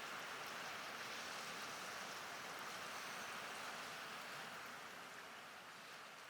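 Steady rushing of sea surf, fading out gradually over the last two seconds.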